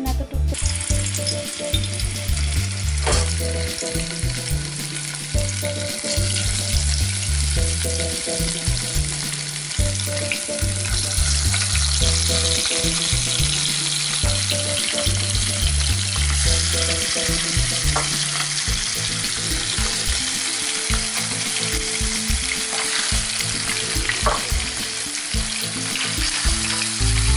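Spice-coated fish pieces frying in hot oil in a wok: a loud, steady sizzle that starts suddenly about half a second in, as the fish goes into the oil, with a few light clicks. Quiet background music with a low bassline plays underneath.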